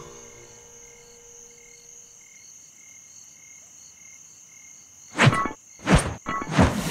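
Night ambience of crickets chirping in an even, pulsing rhythm. Near the end it is cut into by two loud, sudden sound effects under a second apart, followed by a dense noisy burst.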